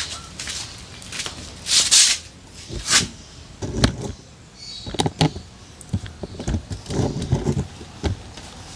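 Irregular knocks, clatters and short scraping noises of a scooter and tools being handled, with no engine running.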